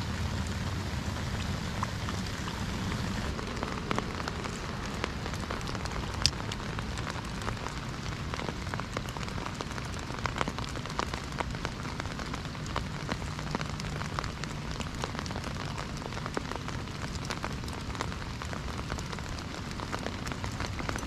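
Steady rain falling on lake water: an even hiss of drops with many small ticks, and one sharper tick about six seconds in.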